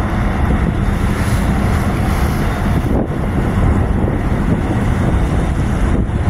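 Strong wind buffeting the microphone over choppy sea water churning along a tugboat's tyre-fendered bow, with a faint steady low hum underneath.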